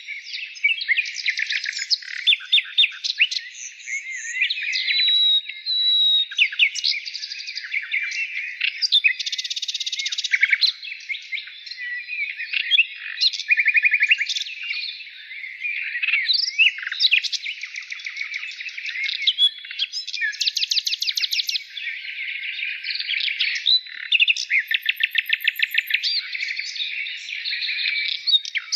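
Many small birds chirping at once, a dense overlapping chorus of short high chirps and fast trills with no pause.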